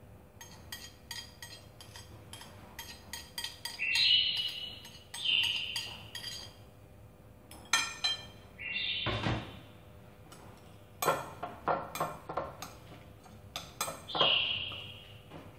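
Metal chopsticks stirring beaten egg and chopped leaves in a glass bowl: irregular clinks and scrapes against the glass, with a few ringing chimes, each about a second long, when the bowl is struck. A dull knock about nine seconds in.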